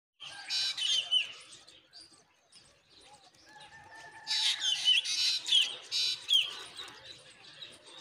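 Mynas calling at a nest with nestlings: two bouts of loud, raspy chirps with quick pitch slides, one about half a second in and a longer one from about four to six and a half seconds in, with fainter chirps between.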